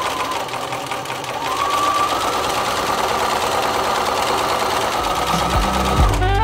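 Bernina activa computerized sewing machine stitching fabric in a fast, steady run, its motor whine rising a little in pitch about a second and a half in and then holding steady.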